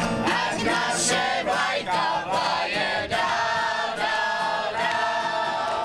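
A mixed group of men and women singing together in chorus to an acoustic guitar, ending on long held notes.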